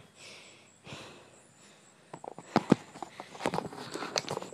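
Handling noise from the recording phone or camera as it is moved and propped in place: a quiet stretch, then a run of knocks and rubbing against the microphone, with two sharp knocks in quick succession about two and a half seconds in.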